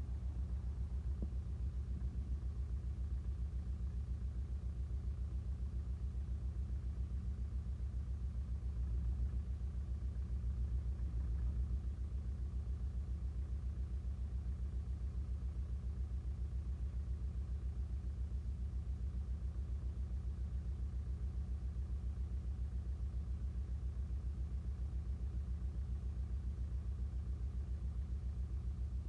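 Engine idling steadily with an even low pulse, swelling a little for a few seconds about nine seconds in.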